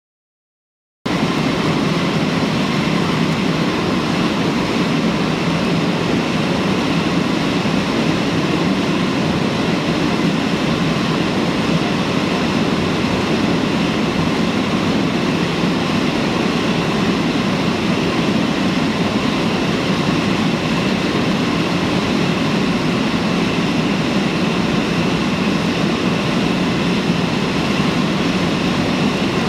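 Scanmaskin 32 World Series electric concrete floor grinder running and grinding off a concrete overlay: a loud, steady, rough grinding noise that starts abruptly about a second in.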